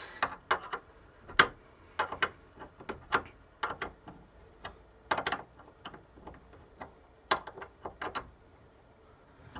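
Scattered clicks and light knocks from hand work tightening a wire connection on a DC breaker until it is snug, the sharpest knock about a second and a half in.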